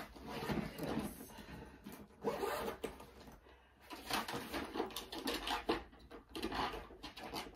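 Several short bursts of hiss from a pump-spray bottle of makeup setting spray being misted onto the face, with some handling noise.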